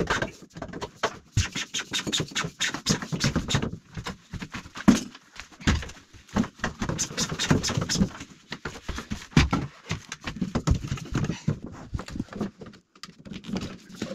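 Plastic plumbing pipe being dragged through holes drilled in timber ceiling joists: a dense, irregular run of knocks, scrapes and rubbing.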